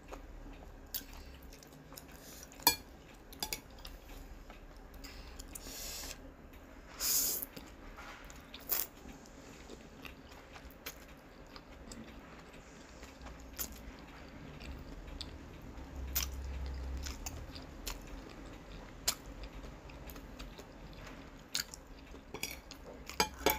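A person eating spicy instant noodles: slurping noodles and chewing, with scattered light clicks of chopsticks against the plate. The two loudest slurps come about six and seven seconds in.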